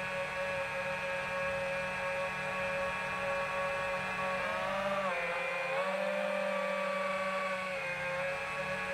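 FPV quadcopter's electric motors and propellers whining steadily. The pitch dips about halfway through and rises back, with a smaller dip near the end, as the throttle changes.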